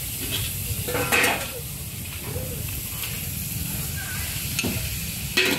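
Mee goreng sizzling in a wok over a charcoal fire while a metal ladle stirs it, with two louder scrapes of the ladle against the wok, about a second in and near the end.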